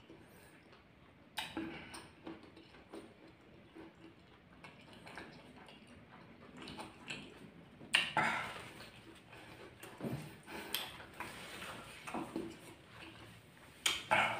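Close-up eating sounds of a man chewing rolled egg in a very hot chili sauce: wet mouth noises and breaths through the open mouth. A few short, sharp, louder sounds break in, the loudest about eight seconds in and again near the end.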